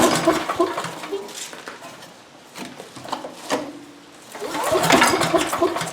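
18 hp Briggs & Stratton Vanguard V-twin engine cranked over twice without firing. Each try is a short run of rapid, even pulses, one right at the start and a longer one from about a second and a half before the end. It is choked and at half throttle after a carburetor swap, following four years of sitting.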